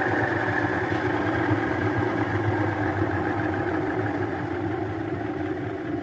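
Esmaltec 6 kg top-loading washing machine running its spin cycle: a steady motor hum with the basket spinning, easing slightly toward the end. The basket now turns because the repaired mechanism locks it to the drive instead of leaving only the inner part spinning loose.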